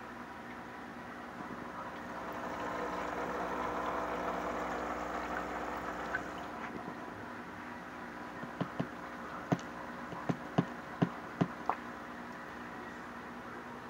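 Steady hum of an aquarium air pump with bubbling water, a rush of water noise swelling for a few seconds about two seconds in. Near the end, about eight sharp knocks come in quick succession.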